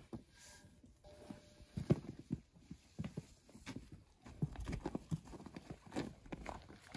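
Horse's hooves walking on snowy, packed dirt as it is led at a walk, irregular hoof falls starting about two seconds in.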